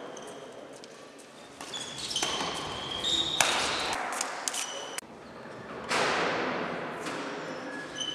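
Badminton rally: sharp racket hits on the shuttlecock, each ringing out in the large hall, with short high squeaks of shoes on the wooden court between them.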